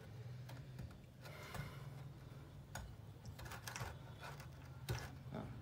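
A few faint clicks and light knocks as a twin-tub washer's electric motor on its metal bracket is handled and shifted on the plastic machine base, over a low steady hum.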